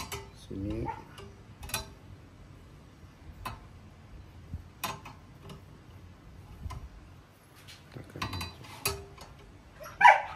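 Scattered metallic clicks, knocks and clinks of hand-push lawn mower parts being handled and fitted together during assembly, a few seconds apart, with a louder clank near the end.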